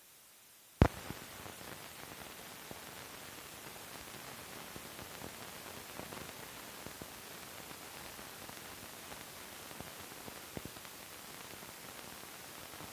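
Old film soundtrack running over blank leader: a loud pop about a second in, then steady hiss with scattered crackles and small clicks.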